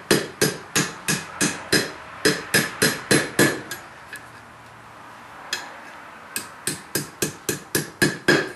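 Blacksmith's hand hammer striking hot steel over the anvil horn to bend a hook, roughly three blows a second with a metallic ring. The blows pause for a couple of seconds around the middle, then start again.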